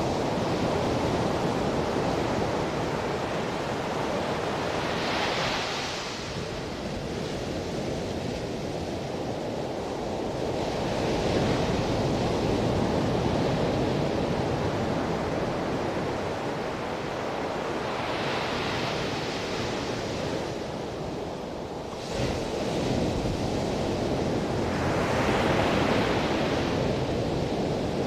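Ocean surf breaking and washing up a sandy beach: a steady roar of waves, with a louder hissing wash about every six to seven seconds.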